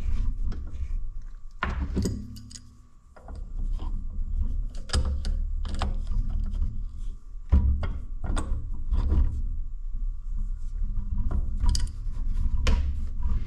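Irregular metallic clicks and knocks of tools and small parts as a small nut is fitted and tightened onto a tractor hydraulic control valve being reassembled.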